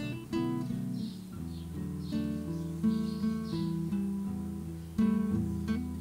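Background music on acoustic guitar: plucked notes and strummed chords, a new note or chord about every half second.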